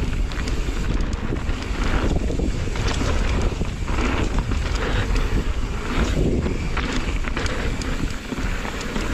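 Wind rushing over the microphone and mountain-bike tyres rolling fast over a dry dirt and gravel trail, with scattered clicks and rattles.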